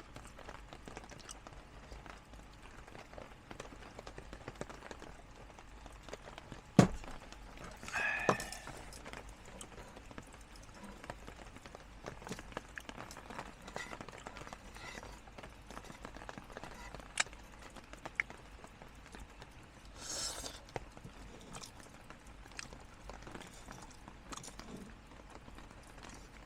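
Rain dripping onto a tarp and car: scattered, irregular taps over a faint steady hiss. There is a sharp knock about seven seconds in, a brief squeak just after eight seconds, and a short rustle about twenty seconds in.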